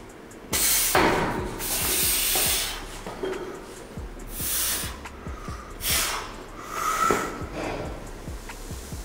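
Forceful hissing breaths of a strongman bracing under a heavily loaded barbell in a front squat: about half a dozen sharp breaths with short pauses between them.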